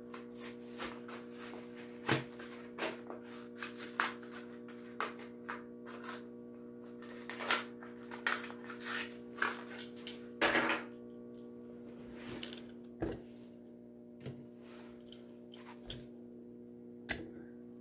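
Plastic blister packaging of a Matchbox die-cast toy truck being opened by hand: scattered clicks and crinkles with a few louder snaps, over the steady hum of a small motorized display turntable.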